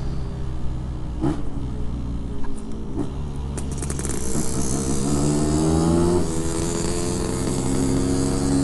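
Yamaha RX-King 135cc two-stroke single running through a Packing Power PK1 aftermarket exhaust. The engine note holds steady, rises as it is opened up about four to five seconds in, then holds at the higher pitch. A few sharp clicks come in the first four seconds.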